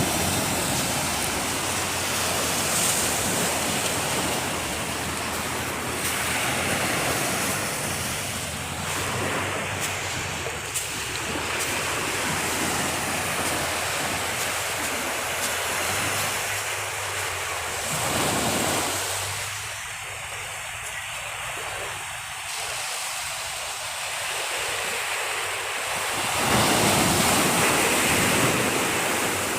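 Sea waves washing ashore, a steady rush of surf that swells louder now and then, with wind on the microphone.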